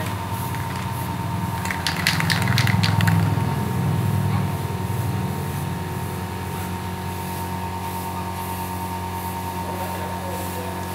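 Aerosol spray-paint can being shaken, its mixing ball rattling in a quick run of clicks about two seconds in, over a steady machine hum.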